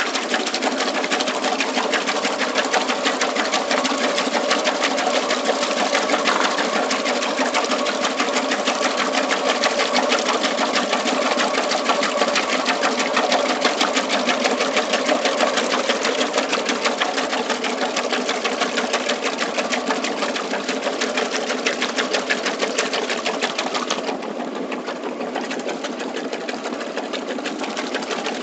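1968 Frigidaire Rollermatic top-loading washing machine agitating a tub of water with its Deep Action agitator: a steady, fast, rhythmic mechanical chatter mixed with churning water. It runs a little quieter in the last few seconds.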